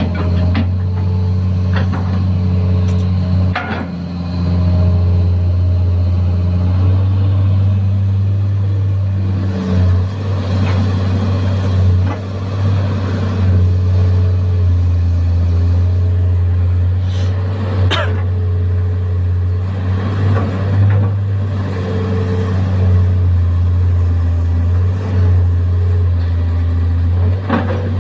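Komatsu PC210 hydraulic excavator's diesel engine running steadily under work, a loud low hum that swells and eases a little, with a few sharp knocks now and then.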